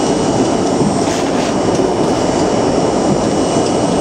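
New York City subway train running through a tunnel, heard from inside the car: a loud, steady rumble with a thin, steady high whine above it.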